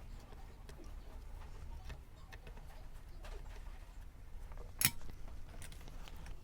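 Faint ticks and taps of hand soldering work on a circuit board, with one sharp click nearly five seconds in, over a low steady hum.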